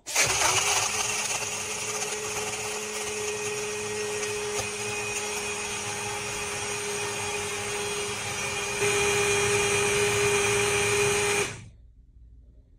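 BlendJet 2 portable rechargeable blender switched on by its button and running steadily as it blends milk and ice, with a constant hum under its whir. It grows louder about nine seconds in, then stops shortly before the end.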